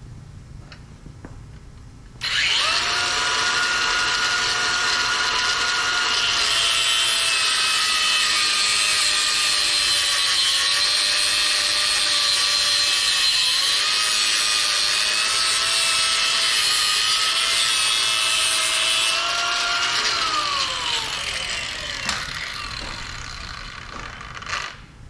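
Ridgid angle grinder with a cutting disc starting up and cutting through a wire-reinforced hydraulic hose held in a vise to get a clean square end. Its high whine sags in pitch under load for a few seconds partway through. The grinder is then switched off and its pitch falls as it spins down, with a short click near the end.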